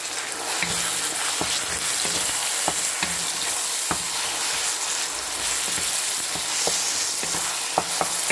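Raw lean ground chicken sizzling in hot oil in a nonstick frying pan, the sizzle growing louder about half a second in as the meat is stirred. A wooden spatula scrapes and taps against the pan as it breaks up the meat, giving scattered sharp ticks over the hiss.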